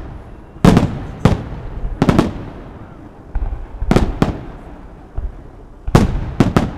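Aerial fireworks shells bursting in a festival display: a string of loud, sharp bangs at irregular intervals, several in quick pairs, each trailing off in a short rumble.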